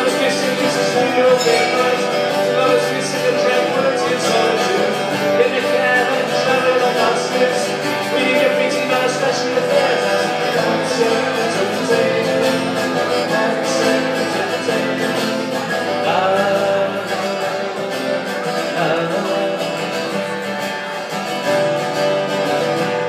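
Two acoustic guitars playing a song together at a steady level.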